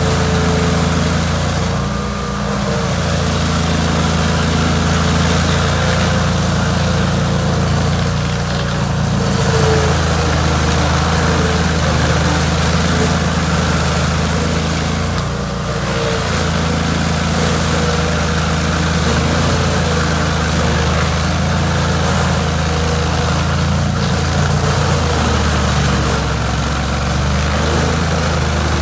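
Chainsaw engine running steadily, cutting into a log root, its note dipping briefly three times as the chain takes the load.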